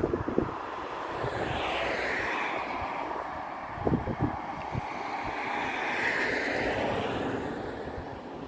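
Wind buffeting the microphone in short gusts, over a steady rushing rumble that swells twice. The rumble is from a distant Sr1 electric locomotive hauling a freight train towards the line-side.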